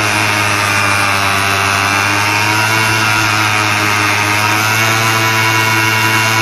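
Zipp Quantum GT scooter engine idling steadily.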